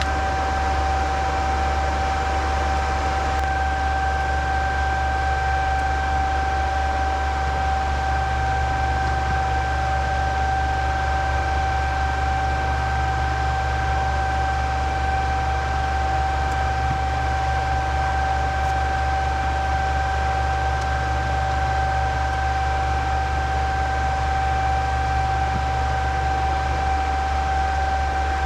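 Cooling fans running steadily, an even whir with a low hum and a constant high-pitched whine.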